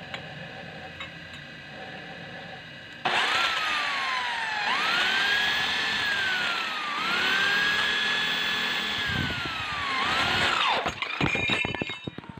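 Handheld electric drill boring into steel angle iron with a freshly sharpened twist bit. The motor starts about three seconds in, and its whine sags in pitch and recovers several times as the bit bites into the steel, then stops with a brief clatter near the end.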